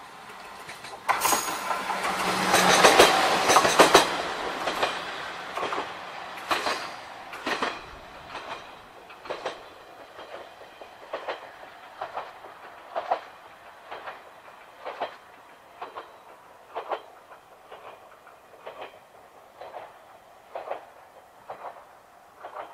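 Yuri Kogen Railway YR-3000 diesel railcar approaching slowly. A loud rush of train noise lasts a few seconds near the start, then gives way to a sharp, even clack about once a second.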